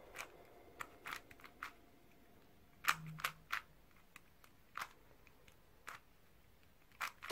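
MoYu AoSu GTS2M magnetic 4x4 speed cube being turned by hand, its layers giving faint, irregular clicks as they snap into place, the sharpest one about three seconds in.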